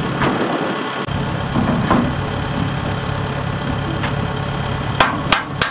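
Diesel engine idling steadily, with three sharp metallic clacks in quick succession near the end.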